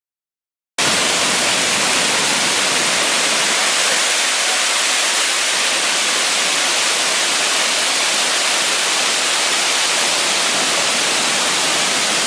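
Waterfall below a lake dam, a steady loud rush of falling water, starting abruptly just under a second in after a moment of dead silence.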